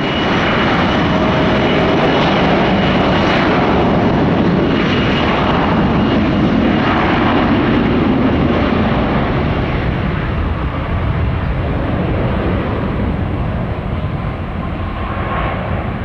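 Mitsubishi CRJ-900 regional jet departing: a loud, steady jet roar from its two rear-mounted GE CF34 turbofans, with a faint high whine, easing off slightly over the last several seconds.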